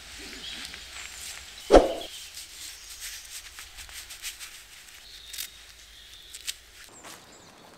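A dog barks once, sharply, a little under two seconds in. Faint rustling and small clicks follow as gloves are pulled on.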